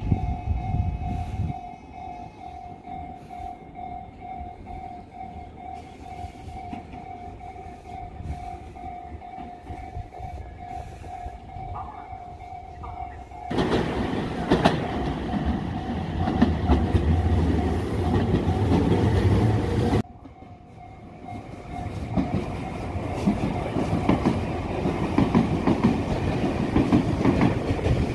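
Japanese level-crossing alarm ringing its repeating electronic bell tone. About halfway through, a Saikyo Line commuter train passes over the crossing with loud wheel and track rumble. The sound breaks off abruptly, the bell is heard briefly again, and another passing train's rumble builds near the end.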